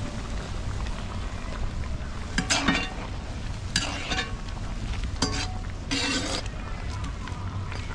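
Chicken being stirred in a pot as it cooks down over the fire, with four short scraping strokes of the stirring utensil against the pot, over a steady low rumble.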